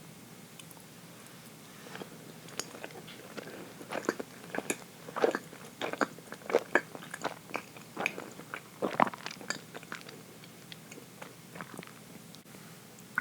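Close-up eating sounds: a person biting into and chewing dense chocolate cake, with irregular wet smacks and small clicks of the mouth, busiest in the middle and thinning out near the end.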